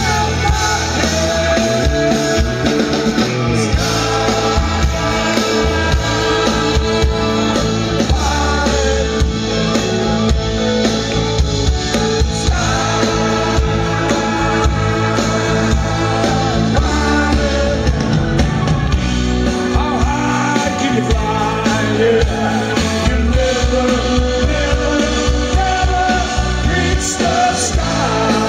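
Live rock band playing loudly through a festival PA: electric guitars, bass, keyboards and drums in a long instrumental passage, heard from within the crowd.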